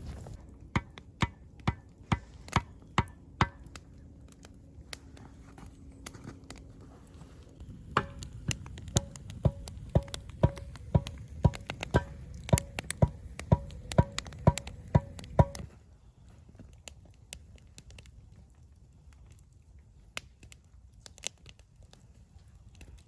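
Knife chopping on a cutting board in steady, evenly spaced strokes with a slight ringing knock. There is a short run of strokes at the start, a pause, then a longer run of about two strokes a second that stops a little past halfway.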